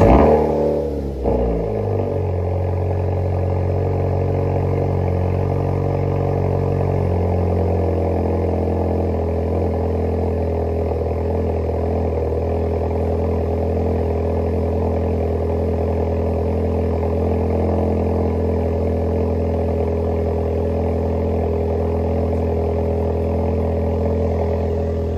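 2016 Ford Focus ST's turbocharged four-cylinder engine catching on a jump-started cold start, flaring briefly, then settling into a steady idle that steps down in speed about seven seconds in. The car had sat about a month with a flat battery.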